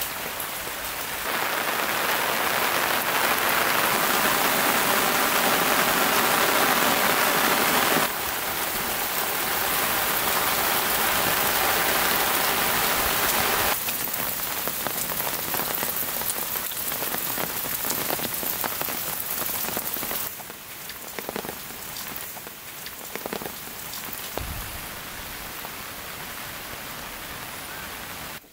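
Rain falling, a steady hiss that shifts abruptly in loudness and tone several times. In the last third it is quieter, with single drops heard hitting a surface.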